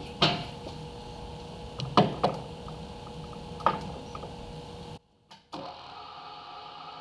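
Sharp metallic clicks and knocks, about five of them in the first four seconds, over a steady machine hum while the SBC brake accumulator sits in the stopped lathe chuck. The sound cuts out briefly about five seconds in, and then the lathe is running again.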